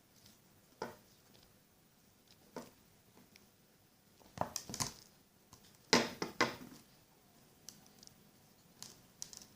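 Crunchy slime being squeezed and worked by hand, giving quiet, irregular crackling pops in small clusters, the loudest about six seconds in.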